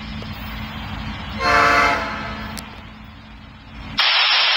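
An approaching Canadian National diesel locomotive sounds one short blast on its air horn about a second and a half in, over the low rumble of the oncoming train. Near the end, a crackly burst of railroad radio voice traffic from a scanner cuts in.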